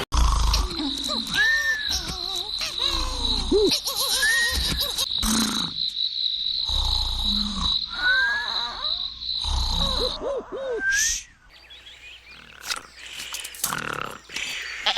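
Cartoon snoring sound effects: a rasping snore about every two seconds, each followed by a whistling glide that rises and falls. A steady high tone runs alongside until about ten seconds in, when the snoring stops and the sound falls quieter.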